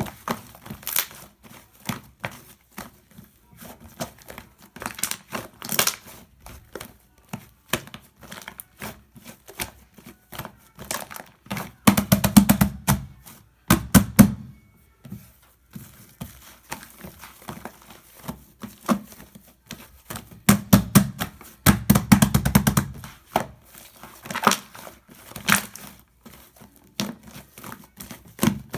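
Hands squeezing and stirring shaving foam, giving irregular sticky clicks and crackles, with louder squishing spells about twelve seconds in, again around twenty-one to twenty-three seconds, and near the end.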